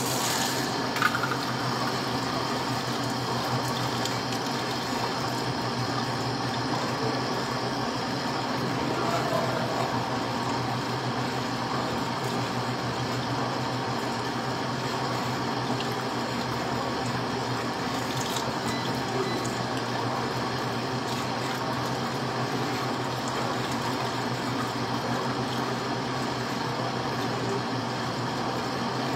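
Steady rush of running water over a constant machine hum, starting just at the beginning and running on without a break.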